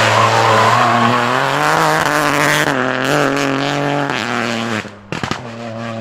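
Opel Corsa rally car's engine at high revs as it drives past, the note stepping up and down with lifts and gear changes. About five seconds in the sound drops away sharply with a few sharp cracks, then carries on more quietly.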